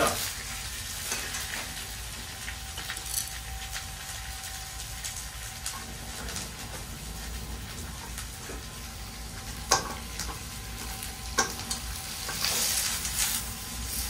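Onions sizzling in oil in a frying pan as they are stir-fried. A spatula clinks against the pan a couple of times, near ten seconds and again a second and a half later, and the sizzle swells briefly near the end.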